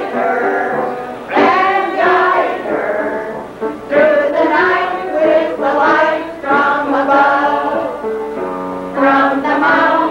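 A kitchen band performing a song, the melody carried by several women singing together in phrases over the band's accompaniment.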